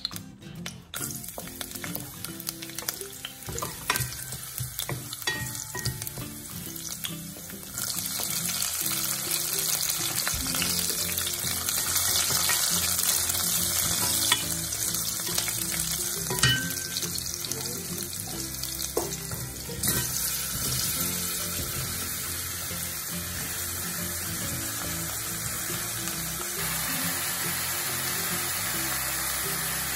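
Chopped garlic and green chilli sizzling in hot vegetable oil in a pot, stirred with a wooden spatula, with scattered knocks of the spatula. The sizzle grows louder about eight seconds in and eases a little after about twenty seconds.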